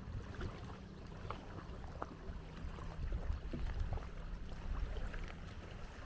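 Shoreline ambience: a low rumble of wind and water at the water's edge, with a faint steady hum through the first few seconds and scattered light clicks.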